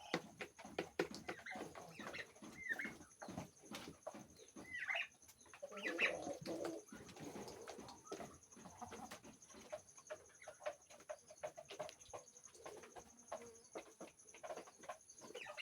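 Young turkeys in a pen giving short high calls and some lower calls, over many small scattered clicks and taps.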